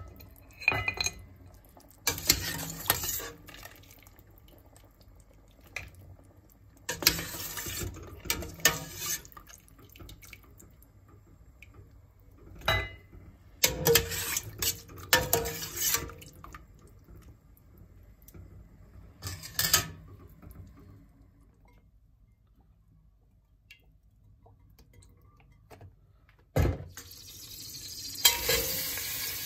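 A metal slotted skimmer clinks and scrapes against a stainless steel stockpot in several short bursts, with broth splashing and dripping back, as boiled lamb pieces are lifted out. Near the end there is a sharp knock, then hot olive oil starts to sizzle.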